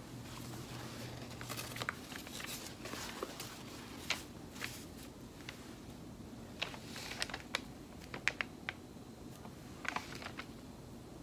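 Scattered light clicks, taps and crinkles of a paper towel and small tools handled on a craft table, as a paintbrush is wiped clean of alcohol ink on the paper towel.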